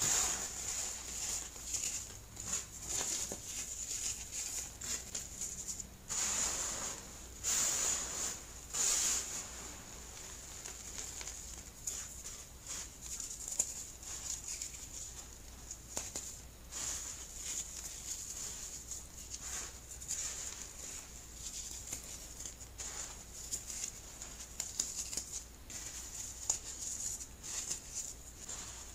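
Clumps of baking soda crunching and crumbling as fingers squeeze and rub them: a quick, irregular crackle, louder for a few seconds about six to nine seconds in, over a faint steady high hiss.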